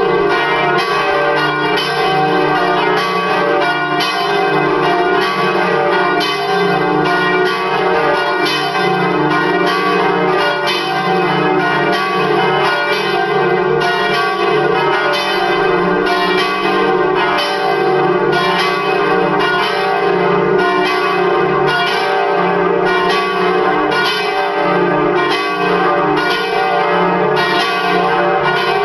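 Four swinging church bells, tuned D, D-sharp, F and G, ringing together in full peal, their strikes following one another steadily and overlapping without a break.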